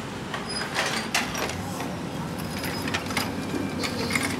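Scattered metal clanks and knocks from a heavy axle housing being handled, over a steady low hum of workshop background noise.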